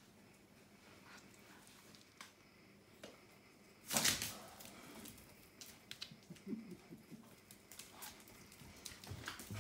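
Kitten hissing sharply once at a dog, about four seconds in, followed by a scatter of soft clicks.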